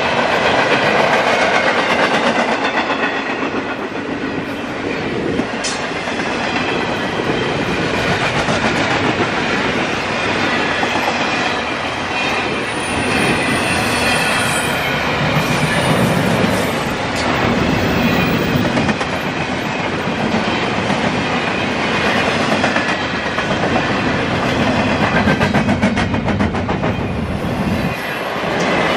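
Double-stack intermodal container train rolling past, its steel wheels clicking rhythmically over rail joints.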